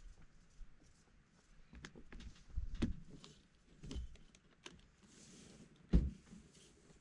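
Irregular light knocks and clicks with a few heavier thumps, the loudest about six seconds in, from someone climbing onto the back of a pickup truck and handling the gear stowed there. A short hiss comes just after five seconds.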